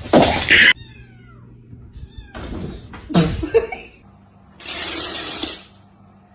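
Domestic cat meowing loudly, once at the start and again about three seconds in, with a second-long burst of noise near the end.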